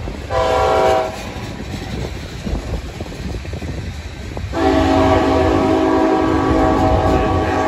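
Freight cars rumbling past on the rails while a locomotive horn sounds a short blast about half a second in, then a long blast from about four and a half seconds in that is still going at the end.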